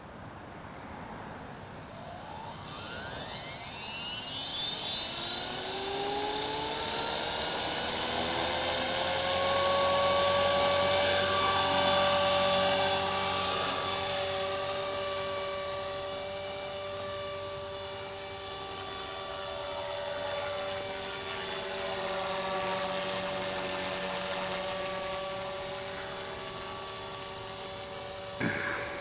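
RC model helicopter's motor and rotor spooling up: a whine rising steeply in pitch over the first several seconds, then a steady high whine with several tones as the helicopter lifts off and flies, slowly growing fainter as it moves away. A short knock near the end.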